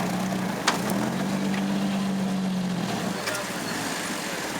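Jeep Wrangler's engine running as it drives off-road, a steady note that holds, then fades about three seconds in. A single sharp click just under a second in.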